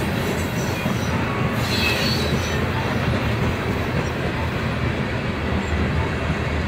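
Loaded coal hopper cars rolling past, their steel wheels on the rails making a steady rumble, with a brief high-pitched wheel squeal about two seconds in.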